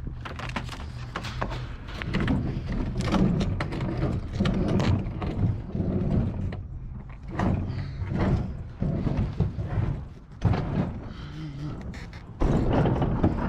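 A heavy scrap appliance being dragged and worked along by hand, with irregular scraping, knocks and metal clunks. There is a sharp knock about ten seconds in, and the noise gets louder a little after that.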